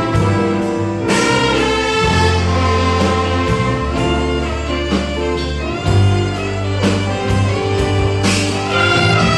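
Church orchestra with a brass section playing an instrumental passage: sustained chords under a trumpet and trombone melody, with strong full-ensemble accents about a second in and again near the end.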